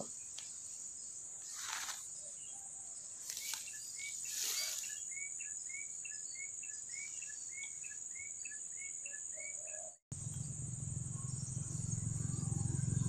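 Insects giving a steady, high drone, with a run of short repeated bird chirps in the middle. The sound drops out briefly about ten seconds in, and a low rumble then rises in level.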